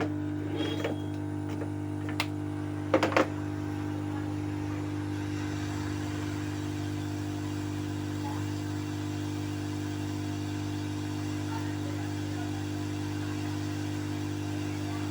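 Hot-air rework station blower running with a steady hum, used to desolder a shorted capacitor from a laptop motherboard. A few light clicks of tools on the board come in the first three seconds, two close together at about three seconds.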